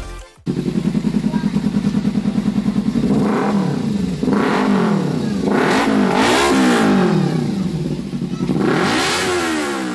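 Kawasaki Ninja motorcycle with an SC Project aftermarket slip-on exhaust (sold as the 'Mini Bomb') idling with a quick, even pulsing note, then revved with several throttle blips, each rising in pitch and falling back to idle.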